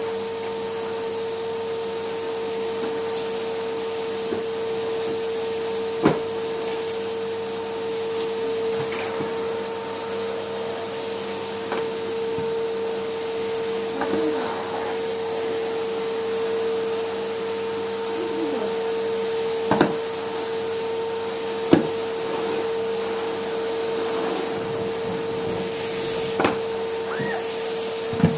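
Numatic Henry vacuum cleaner running steadily with an even, high motor hum, broken five times by sharp knocks.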